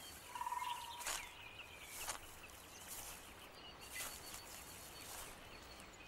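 Faint forest ambience with small birds chirping now and then and a few short soft clicks.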